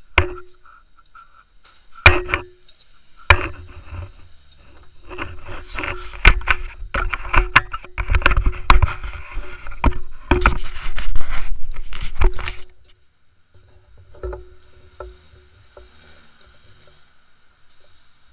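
Handling noise on a small action camera: two sharp knocks, then several seconds of dense bumping, clicking and rubbing as the camera is moved, much louder than the table sounds around it. It dies down to a few faint clicks near the end.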